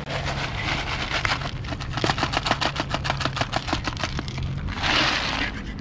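A dog crunching dry kibble, a quick, even run of sharp crunches, with a short rustling burst near the end and a steady low hum underneath.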